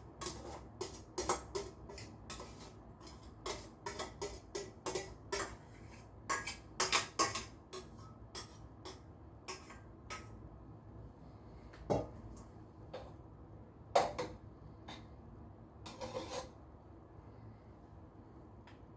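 A utensil clinking and scraping against a cooking pot as rice is spooned in, with quick, busy clinks for the first half and a few separate knocks later.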